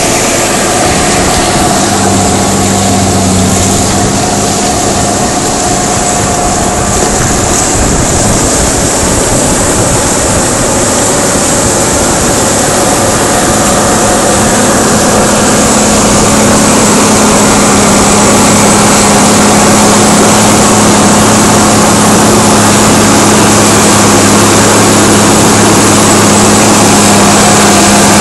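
New Holland TG285 tractor's six-cylinder diesel engine running steadily under load while pulling a four-furrow reversible plough through the soil, with a steady hiss over it. It grows a little louder about halfway through.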